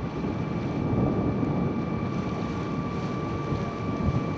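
Wind buffeting the microphone aboard a ship under way in rough water, over the steady drone of the ship's engine and a thin steady whine.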